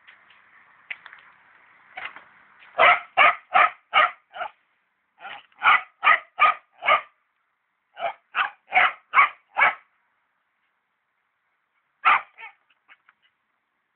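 Dog barking in three quick runs of about five barks each, evenly spaced at roughly two and a half barks a second with short pauses between runs, then one more bark near the end.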